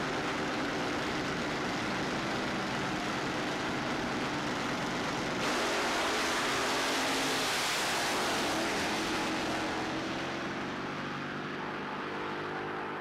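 Engines of a nitro-burning fuel roadster and a twin-engine fuel dragster, running steadily at the starting line. About five and a half seconds in comes a sudden louder blast as the cars launch and run down the drag strip. The sound then fades as they draw away.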